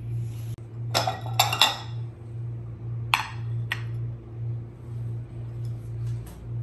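White ceramic plate and bowl clinking as they are set down and settled: three quick clinks about a second in, then two more about two seconds later, over a steady low hum.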